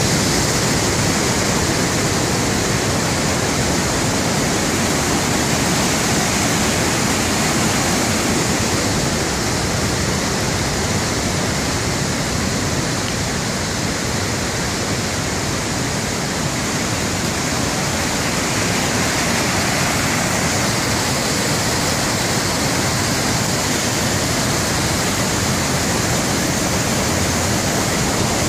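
Steady rushing of a creek's waterfall and white-water cascade.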